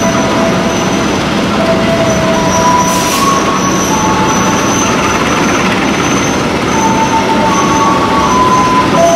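Passenger train moving slowly, its steel wheels squealing against the rails. Several high, steady squeal tones start and stop over a continuous rumble of the wheels and the carriage.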